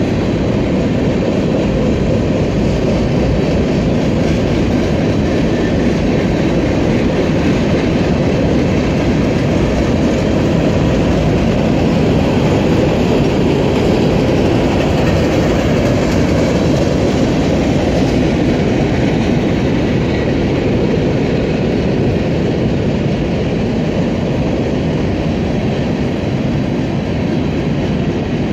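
Freight cars of a mixed freight train rolling steadily past: steel wheels running on rail, with covered hopper cars and then tank cars going by, a loud, even noise.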